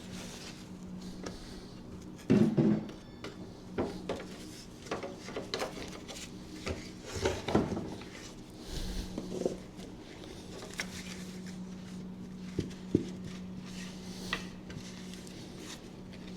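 Wooden stakes being handled and knocked against each other: scattered knocks and clicks, with a louder clatter about two seconds in, over a faint steady hum.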